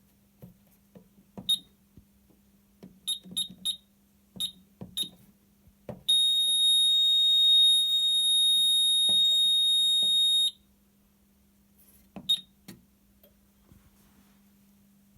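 Fire alarm system giving short high electronic beeps, several in quick succession, then a steady high-pitched alarm tone for about four and a half seconds that cuts off sharply, followed by one more beep.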